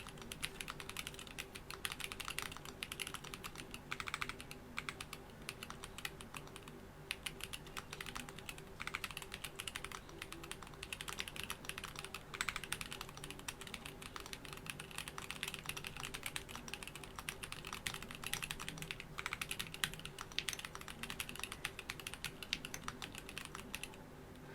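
Continuous typing on a KBDfans D45 mechanical keyboard fitted with Boba U4T tactile switches and JTK Hyperfuse keycaps: a fast, dense run of keystrokes with a couple of brief pauses.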